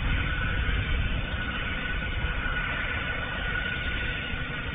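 Cessna Citation twin-engine business jet landing with its engines at low thrust: a steady high whine over a rough low rumble.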